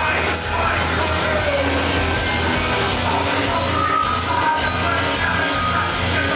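Live rock band playing loud, with electric guitars in a dense, steady wall of sound.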